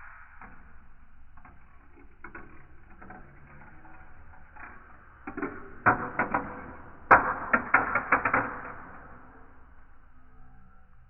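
Marbles rolling and clattering along a marble run: scattered clicks that build into two bursts of rapid clacking, the second opening with the sharpest knock about seven seconds in.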